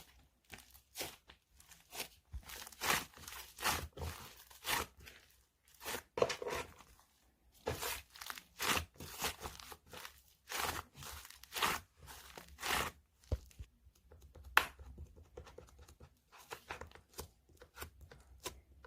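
Hands squishing and stretching homemade clay slime: irregular sticky tearing and crackling sounds coming in short bursts, with one sharp click about three-quarters of the way through.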